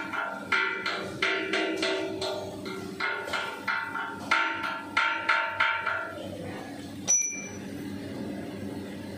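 A hammer striking the welded steel drum of a roller crusher, each blow ringing like a bell: about three blows a second, stopping about six seconds in, then one sharper clank about a second later.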